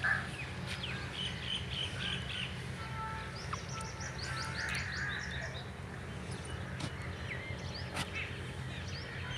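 Small birds chirping and calling in quick, scattered notes over a steady low rumble.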